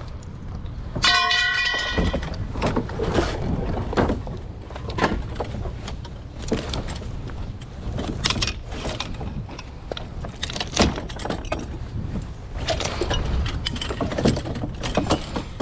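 Scrap metal and debris being handled and pulled apart: irregular clanks, rattles and scrapes, with a brief metallic ring about a second in.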